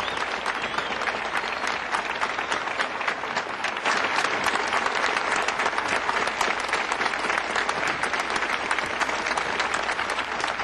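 A large crowd applauding, dense steady clapping that grows a little louder about four seconds in.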